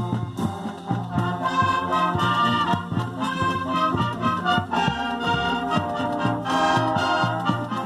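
Marching band playing: brass instruments holding chords over a steady beat of drum strikes.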